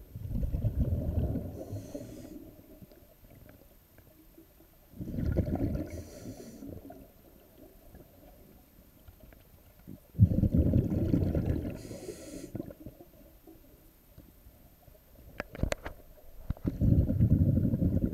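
Scuba diver breathing through a regulator underwater: four rumbling bursts of exhaled bubbles, each about two seconds long and some five seconds apart, each followed by a short hiss of the next breath drawn in. A few sharp clicks come about three-quarters of the way through.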